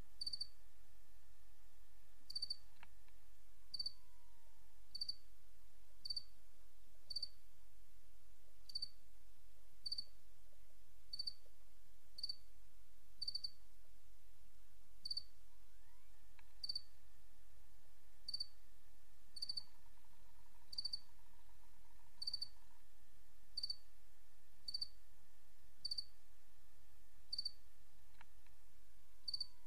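Insect chirping: short, high-pitched chirps repeating about once a second, over faint held tones and a low hum.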